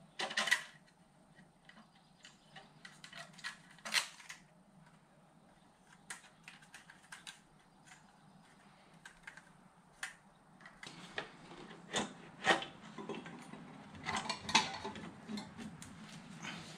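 Scattered metallic clicks, clinks and knocks as an exhaust manifold gasket and the exhaust manifold are handled and slid onto the studs of the 2.0 TFSI cylinder head. There are louder knocks about four seconds in and several more near the end.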